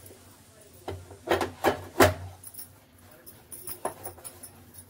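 Metal clanks from the lid and body of an aluminium pressure cooker being handled: a cluster of sharp knocks about one to two seconds in, the loudest near two seconds, and one more near four seconds.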